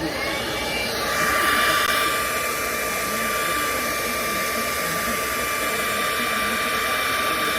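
Hair dryer switched on: its whine rises over the first second, then it runs steadily with a high tone over a loud rush of air.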